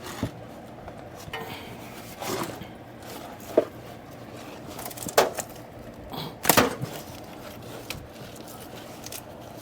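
A handful of separate knocks and clunks from objects being handled and set down, the loudest about three and a half, five and six and a half seconds in.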